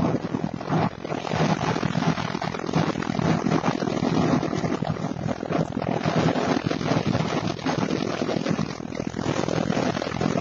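Steady engine drone with tyre and wind noise, heard from inside a vehicle's cab cruising at highway speed.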